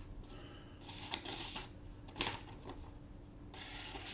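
Fura titanium folding knife's D2 steel blade test-cutting a material: two hissing slicing strokes, about a second in and again near the end, with a few sharp clicks between them.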